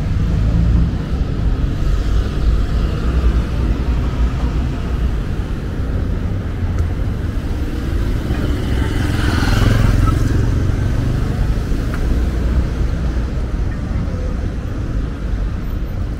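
Steady rumble of busy city road traffic, with one vehicle, likely a motorcycle, passing close about nine to ten seconds in.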